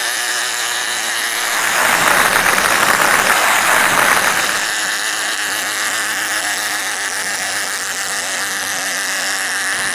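Toy fishing game's mechanism running as the pond turns, a steady mechanical whir that swells louder about two seconds in and eases back a couple of seconds later.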